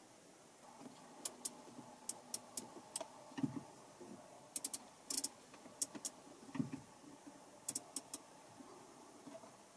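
Sharp plastic clicks, one at a time and in quick groups of two or three, from a Mercedes-Benz Audio 20 centre-console rotary controller being turned and pressed, with a few soft low thumps.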